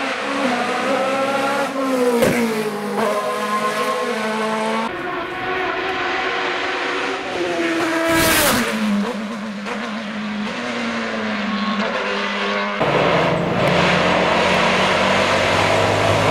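Racing car engines on a hill climb, several cars in turn, revving hard and changing gear, the pitch rising and dropping repeatedly. About eight seconds in, one car passes close with a falling pitch. From about thirteen seconds a touring car's engine pulls hard out of a hairpin.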